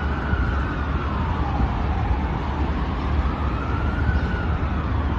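Fire Rescue Victoria pumper's siren on a slow wail, its pitch rising and falling about once every four seconds, over a steady low rumble.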